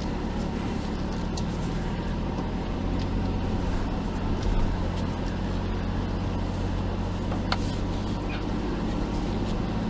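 Off-road Jeep engine running steadily at low crawling speed, with a few sharp clicks, the clearest about seven and a half seconds in.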